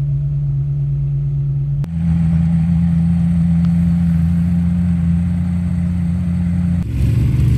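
Supercar engines running steadily, with two abrupt changes in the engine tone, about two seconds in and again near the end. The middle stretch is a McLaren Senna's twin-turbo V8 idling.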